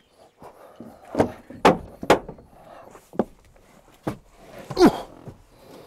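Footsteps, then the driver's door of a Mk8 Ford Transit van being opened and someone climbing into the cab: a series of separate knocks and clicks of the latch and door, with a louder knock near the end. The engine is not yet running.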